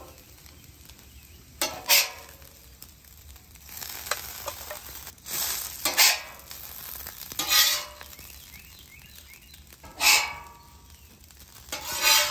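A metal spatula scrapes across the steel top of a hot griddle about five times, scooping up hash browns, with a faint sizzle of frying between the strokes.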